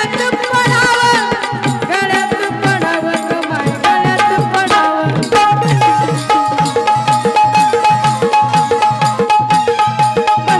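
Marathi folk band instrumental: a quick, even hand-drum rhythm under a keyboard melody, which settles on one long held note about halfway through.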